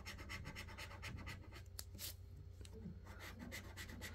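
Scratchcard coating being scratched off in quick, repeated short strokes, several a second, to reveal the symbols underneath.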